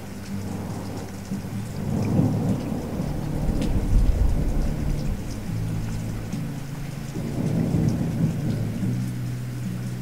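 Thunder-and-rain soundscape: deep rumbles swell twice over a patter of rain, with sustained low notes of background music underneath.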